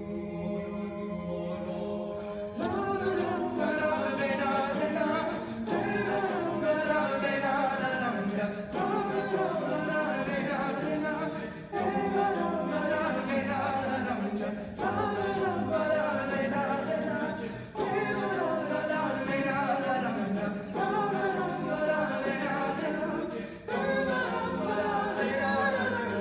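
A cappella choir singing in harmony over a held low drone. The upper voices come in about two and a half seconds in and sing in even phrases of about three seconds, with a short breath between each.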